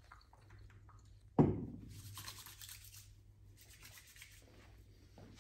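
A barber's hands working with a bottle of liquid at the sink: a sharp knock about a second and a half in, then two short hissing, rubbing bursts.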